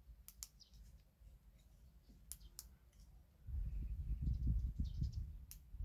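Several sharp clicks of a rechargeable headlamp's push-button being pressed to cycle through its light modes. A low, uneven handling rumble comes in past the middle.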